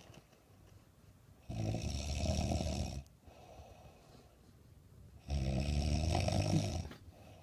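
A sleeping woman snoring heavily: two loud snores of about a second and a half each, roughly four seconds apart, with quieter breathing between them.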